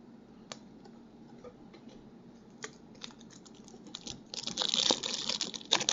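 Trading cards and a foil card pack being handled: scattered light clicks and taps, then from about four seconds in a dense crinkling rustle as the next pack's wrapper is worked open.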